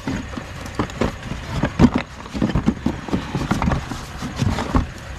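Objects knocking and clattering irregularly as someone rummages through a pile of curbside junk and scrap.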